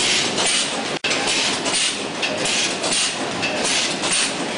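Vertical form-fill-seal weighing and packing machine running, a steady mechanical clatter with a repeating rhythm. The sound drops out for an instant about a second in.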